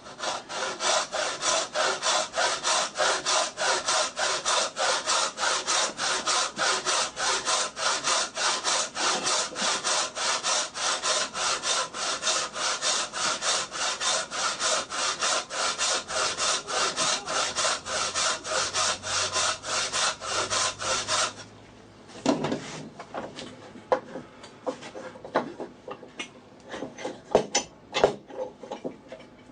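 Hand saw cutting into hardwood with steady back-and-forth strokes, about three a second, cutting the shoulders of a joint. It stops suddenly about two-thirds of the way in, and is followed by scattered light knocks and taps of wood and tools being handled.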